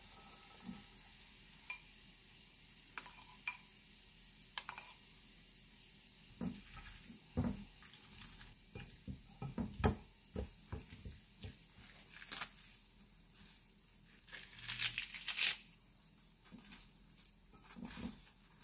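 Kitchen food-handling sounds: wet spaghetti sliding out of a mesh strainer into a glass bowl, then wooden chopsticks clicking and knocking against the glass as the pasta is tossed with sauce. Near the end, fresh lettuce leaves crinkle and rustle as they are pressed into the bowl. A faint steady hiss lies underneath.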